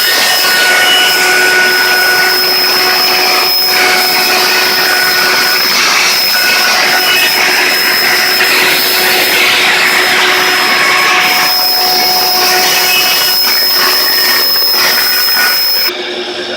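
Power woodworking machine running as quarter-inch ipe hardwood spacers are milled flat: a loud, steady mechanical noise with a high whine over it. The loud part cuts off suddenly about a second before the end, leaving a quieter hum.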